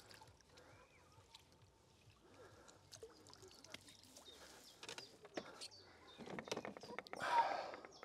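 Scattered small clicks and handling noises, then a louder rush of splashing, sloshing water lasting about a second and a half near the end.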